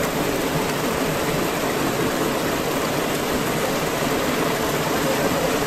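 Fast stream of rainwater pouring over rocks in a small cascade, a steady rush of water.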